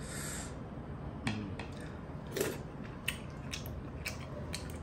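Close-miked eating of tuna eyes cooked in vinegar (paksiw): a brief slurp at the start, then about six sharp, wet mouth clicks and smacks spread through the rest.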